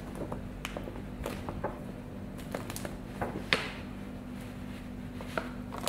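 Clear plastic film crinkling and crackling under handling hands, in irregular sharp clicks with one louder crack about halfway through. A steady low hum runs underneath.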